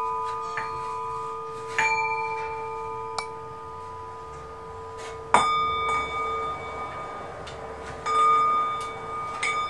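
Struck bells played as live music, each stroke ringing on in long tones that overlap the next; about seven strokes, the loudest about five seconds in and another strong one near the end.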